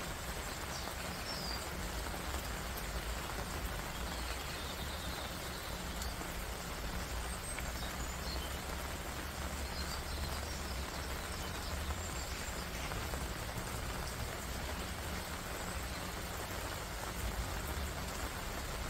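Heavy rain falling steadily, a continuous even hiss of the downpour with a low rumble beneath it.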